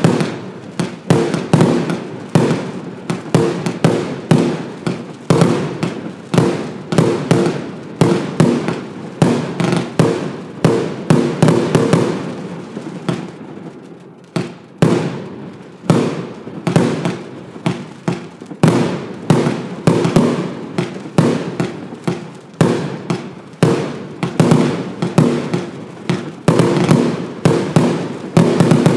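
Evolution Fireworks 'Tropic Snow' multi-shot firework cake firing, shot after shot launching and bursting at about two to three bangs a second. There is a short lull about halfway, and a heavy volley near the end.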